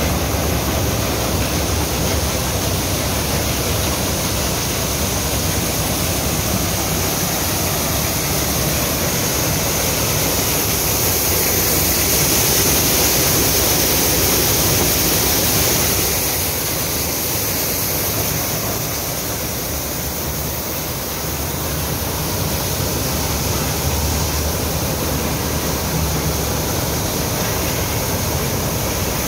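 Tractor-driven maize sheller threshing under load: a steady, dense rush of the machine and shelled corn kernels pouring, over the steady hum of the Massey Ferguson 260's three-cylinder diesel engine driving it through the PTO shaft.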